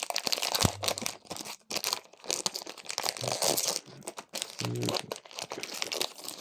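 A Pokémon card booster pack's foil wrapper being torn open and crinkled by hand, a continuous run of tearing and crackling.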